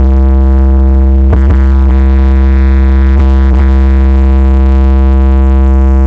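Loud electronic music on a DJ sound system: a held synthesizer chord over heavy bass, with a few sharp drum hits.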